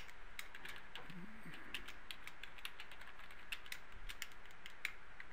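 Computer keyboard being typed on slowly, hunt-and-peck style: a faint, irregular scatter of single key clicks.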